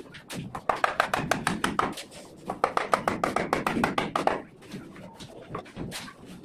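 Hammer striking a steel chisel into brickwork in two quick runs of sharp metallic taps, about eight a second, then a few scattered lighter taps near the end.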